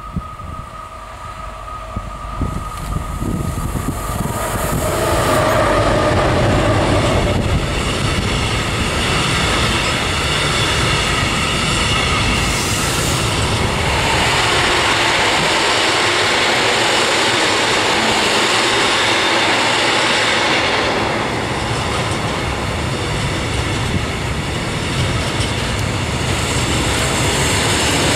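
A diesel-hauled freight train passing close by. The locomotive's sound builds over the first few seconds, then a long string of tank and silo wagons rolls past with a steady rumble and wheel noise.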